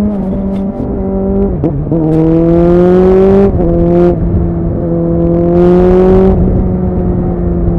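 Suzuki Bandit 650's inline-four engine through a MIVV aftermarket exhaust, pulling under throttle. The note climbs slowly twice, and each climb ends in a short dip in pitch, about three and a half seconds in and again near six and a half seconds.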